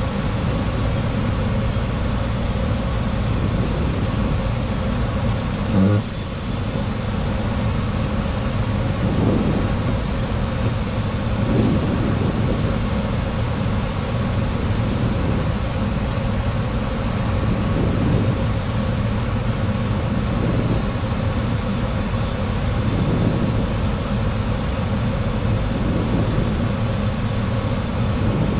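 Steady cockpit noise of a Boeing 737-800 on final approach: airflow and engines, with the windshield wipers sweeping the rain-wet windscreen about once every two and a half seconds. There is a brief bump about six seconds in.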